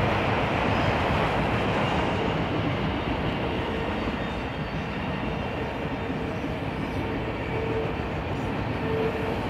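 Autorack freight cars rolling past: a steady rumble and rush of steel wheels on rail. A faint ringing tone rises briefly near the end.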